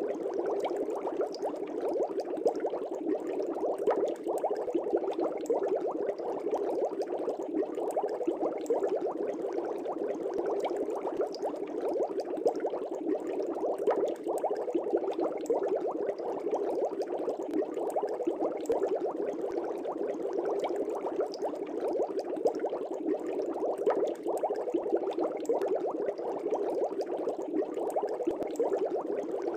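Aquarium air bubbles rising and breaking at the water surface in a fish tank, a dense, steady bubbling and gurgling with fine crackling pops.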